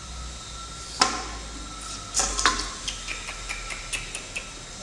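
A knife and pineapple pieces clicking against a stainless-steel tray: one sharp click about a second in, a louder clatter a little later, then a run of light ticks.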